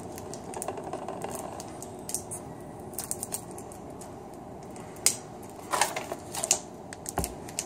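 Plastic wrappers of Warheads sour candies crinkling and clicking as they are unwrapped by hand, with irregular sharp ticks.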